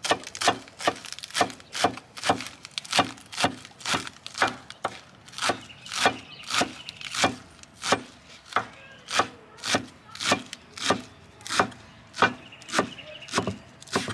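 Stainless steel cleaver chopping lettuce on a bamboo cutting board: the blade knocks on the wood in a steady rhythm, a little under two strokes a second.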